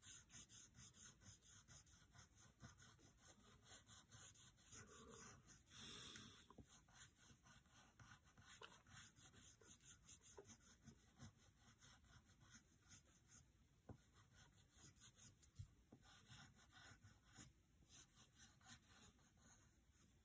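Faint scratching of a pencil on paper, a run of short, irregular strokes as small circles are drawn.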